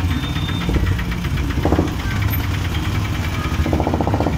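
Engine running steadily with a low, even rumble.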